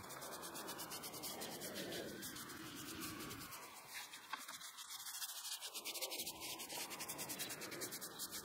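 Stiff-bristled brush scrubbing back and forth over wet cement on a brick floor, in quick, rapid strokes, several a second, working the slurry into the brick joints.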